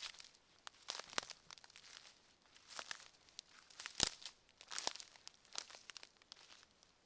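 Footsteps crunching on the forest floor at a walking pace, about one step a second, with a sharper crack about four seconds in.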